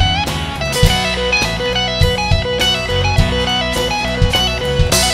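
Rock band playing an instrumental passage live: electric guitar lines over electric bass, punctuated by sharp percussive hits.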